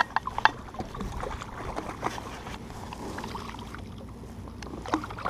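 A hooked stocked trout splashing at the surface beside the boat as it is brought to the landing net, with irregular splashes and knocks of water against the hull.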